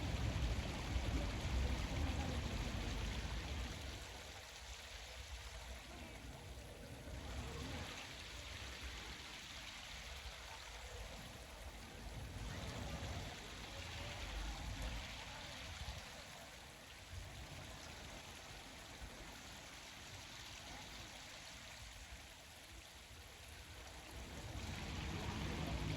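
Steady running water at the lake, an even rushing trickle, with a stronger low rumble in the first few seconds and again near the end.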